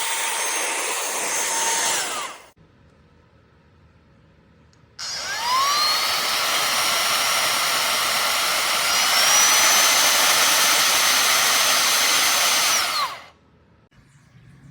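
Cordless handheld vacuum's motor running with a high whine, then winding down to a stop about two seconds in. About five seconds in it starts again with a rising whine, steps up in pitch partway through, and winds down to a stop near the end.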